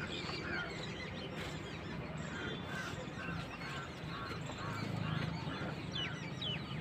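Birds calling in the background: a steady series of short calls, two or three a second, with thin higher chirps and whistles near the end.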